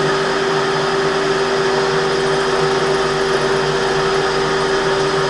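Metal lathe running steadily while a 10 mm drill bit in the tailstock chuck is fed through an aluminium collet near the end of the hole. It makes a continuous hum with a constant tone.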